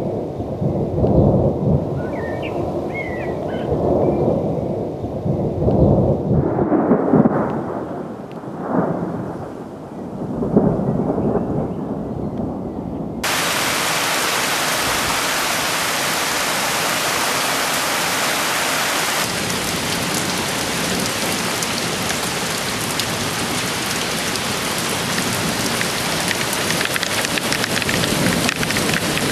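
Thunder rumbling in several rolling swells; about thirteen seconds in it cuts abruptly to the steady hiss of a heavy cloudburst downpour.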